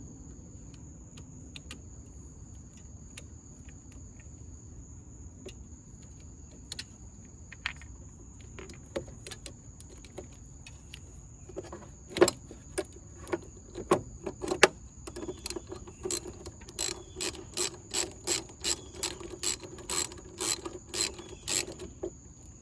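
Ratchet wrench tightening the bolts on new battery terminal clamps: scattered clicks and knocks at first, then a steady run of ratchet strokes, about two a second, over the last several seconds.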